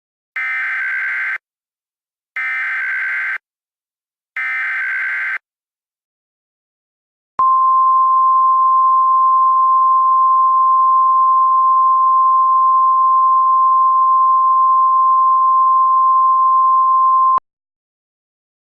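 Emergency Alert System alert start: three one-second bursts of screechy SAME header data, then a single steady attention tone for about ten seconds that stops abruptly. This is the signal that a new emergency message is about to be read.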